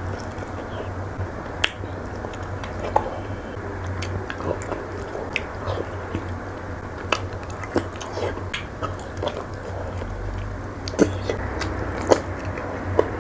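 Close-miked chewing of spicy pork ear, moist mouth sounds broken by many short, sharp crunches of the chewy cartilage, over a low steady hum.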